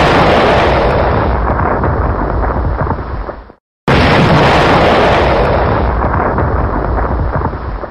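Timer alarm explosion sound effect, repeating: a loud boom with a rumbling tail that fades away over about three seconds, then a fresh boom starts suddenly about four seconds in and fades the same way.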